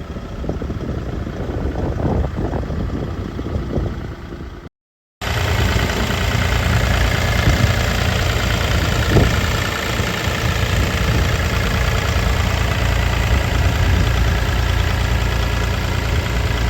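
Kubota U48-5 mini excavator's diesel engine running steadily. The sound breaks off completely for about half a second around five seconds in, then the engine drone carries on.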